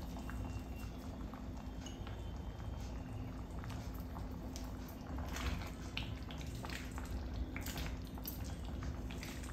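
Thickened milk simmering in a kadai, with a steady low hum underneath. From about halfway, a silicone spatula stirring through the thick milk adds soft scrapes and squelches.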